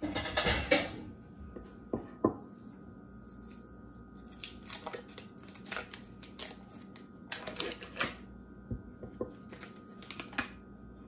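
Stick of butter being unwrapped from its paper wrapper and set into a glass measuring cup: bursts of paper rustling and crinkling with scattered light taps and clicks, the loudest rustle at the very start.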